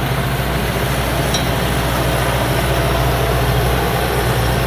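Rice combine harvester running steadily at high revs while harvesting, its engine and threshing machinery making a continuous loud drone.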